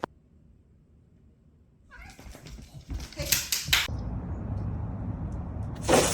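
A cat meowing, with a few short, sharp noisy bursts about three seconds in and again near the end, over a low rumble.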